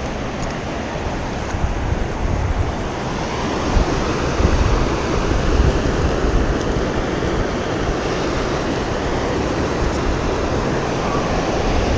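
Ocean surf washing onto the beach, with wind buffeting the microphone in a low rumble that grows stronger around the middle.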